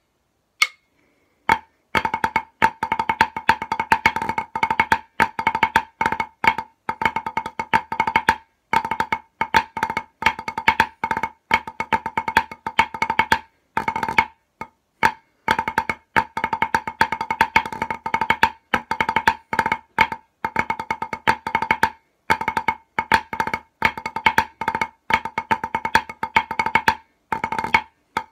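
Drumsticks playing the snare part of a 2/4 pipe band march slowly on a practice pad: fast runs of sharp, ringing strokes with rolls and accents, broken by short pauses between phrases.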